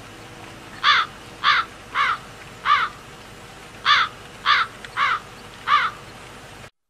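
Crow cawing: eight harsh caws in two runs of four, a little over half a second apart.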